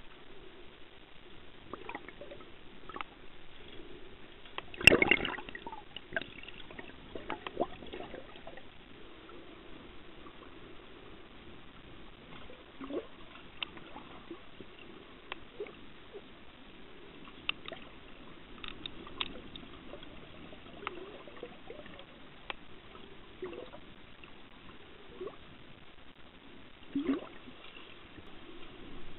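Underwater water sound: a steady gurgling haze with scattered short ticks, and a loud rushing burst about five seconds in, with a smaller one near the end.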